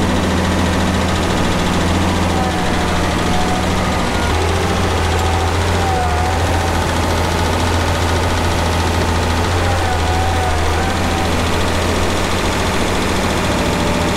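International Harvester farm tractor engine running steadily while its front loader bucket digs into a manure pile.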